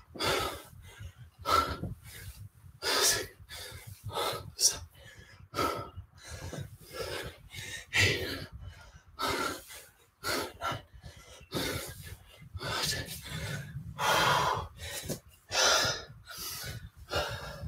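A man breathing hard from the exertion of kettlebell squats: sharp, rapid exhales and gasps about once a second.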